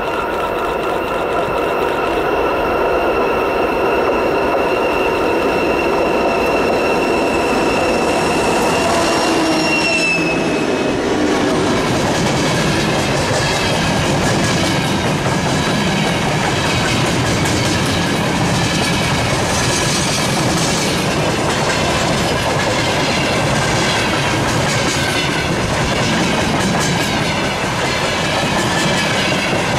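A 2TE116 twin-section diesel locomotive approaches and passes with its engines droning and a high whine that drops in pitch as it goes by, about ten seconds in. Then a freight train of hopper wagons rolls past with steady wheel clatter on the rail joints.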